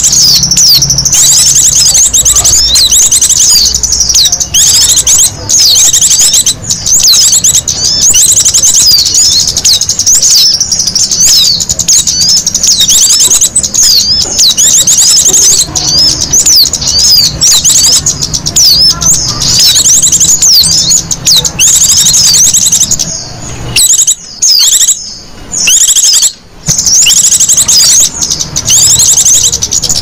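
Bird-lure recording of small songbirds chattering: a loud, dense stream of rapid high chirps and trills, broken by a few short gaps about three-quarters of the way through.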